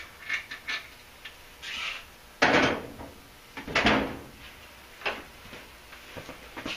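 Off-camera handling noise in a garage workshop: a few clicks, knocks and short scraping clatters of equipment being moved, the two loudest about two and a half and four seconds in.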